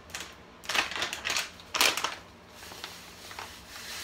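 Plastic bag rustling and crinkling as a measuring cup is scooped into it, with two louder crinkles about one and two seconds in.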